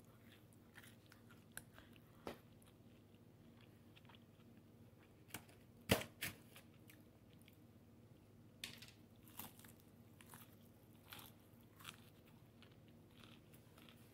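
Faint chewing and biting into takeout chicken, with scattered soft crunches; the loudest bite comes about six seconds in, followed by a run of smaller crunches.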